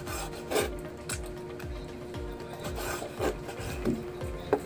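Chef's knife slicing boiled pork intestines on a wooden cutting board: the blade rubs through the soft intestine and knocks on the board several times.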